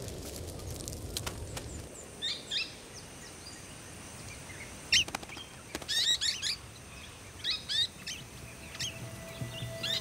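Bush fire crackling with a low rush for the first couple of seconds, then birds giving short, high chirps in several quick bursts.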